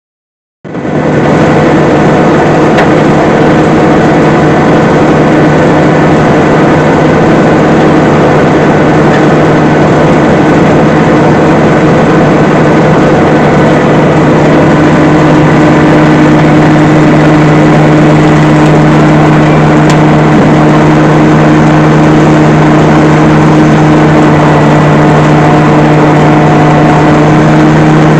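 An engine running steadily at constant speed, coming in suddenly about half a second in, with a fixed hum and a steady, unchanging pitch.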